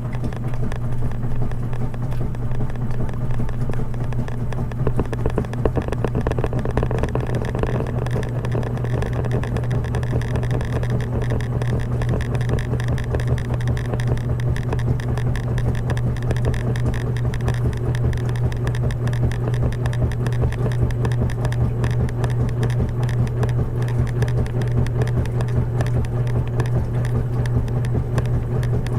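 Washing machine running with a steady low hum and an even mechanical whir that does not change.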